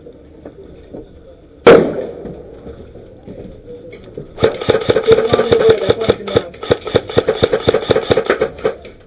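Airsoft rifle fire: one sharp crack a couple of seconds in, then from about halfway a long run of rapid shots.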